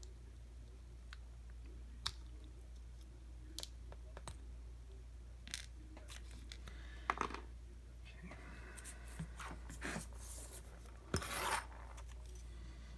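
Light metal clicks and scrapes from working a retaining clip off an American 5200 padlock with small tools. The sounds come at irregular intervals, with a rasping scrape a little after the middle and a louder scrape near the end.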